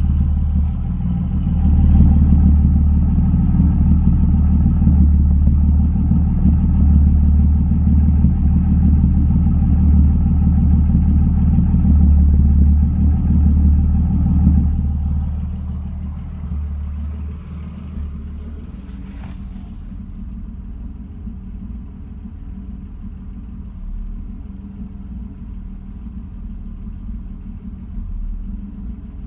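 BMW M3 engine idling steadily at about 1000 rpm, an idle the owner considers not quite right. The rumble is strong for the first half, then drops in level and stays lower for the rest.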